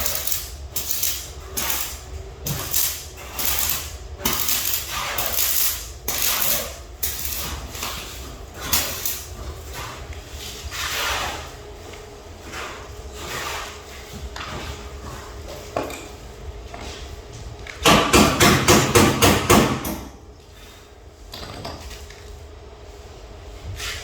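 Hammer blows, spaced about half a second to a second apart at first, then a quick loud run of about eight rapid blows near the end.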